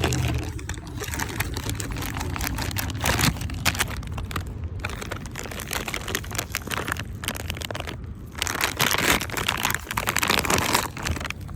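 Irregular rustling and crinkling of a bag being rummaged through and plastic wet-wipe packaging being handled.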